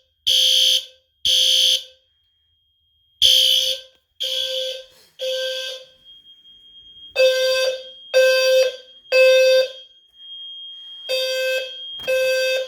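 Fire alarm horn-strobes sounding in the temporal-three evacuation pattern: three blasts about a second apart, a pause, then three again. A low-frequency 520 Hz sounder is among them, giving a deep buzzing tone. A thin steady high beep carries on between the groups of blasts.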